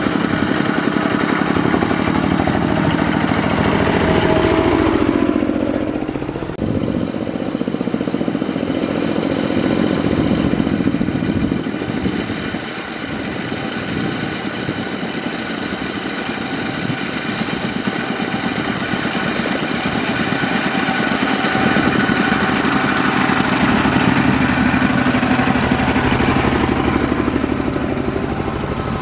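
Diesel engines of two-wheel tractors (power tillers) hauling trailers of rice sacks, running with a fast steady chugging beat and some clatter as they pass close one after another. The engine note shifts about five seconds in as one goes by.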